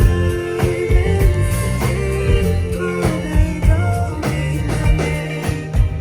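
Band music with a drum kit keeping a steady beat under a strong bass line and held chords, with some singing.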